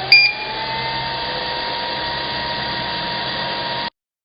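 A short electronic beep from the control panel, then the 3D vacuum sublimation heat press's vacuum pump starting up: its whine rises in pitch over about a second and settles into a steady run. The sound cuts off suddenly near the end.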